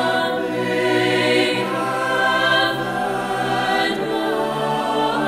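A cappella SATB chorus singing held, slowly shifting chords, without instruments, on the words 'have that right'.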